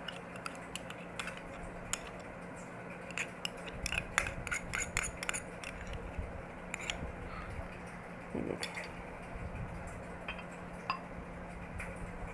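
A metal spoon scraping and clinking against a mayonnaise tub and a bowl as mayonnaise is spooned out, a scatter of quick clicks that is busiest in the first half. A faint steady hum runs underneath.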